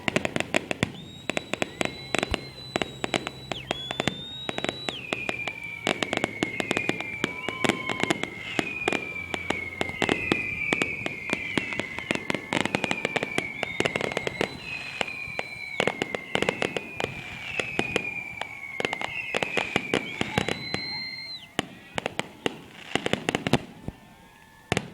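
Fireworks and firecrackers popping and crackling in rapid, dense strings. Through the middle a series of whistles repeats about every second and a half, each sliding downward in pitch, after an earlier held whistle. The crackling thins out near the end.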